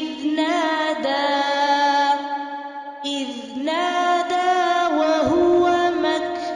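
A single voice chanting the Quran in melodic tajweed style. It holds long notes with ornamented turns, and there is a brief softer pause near the middle.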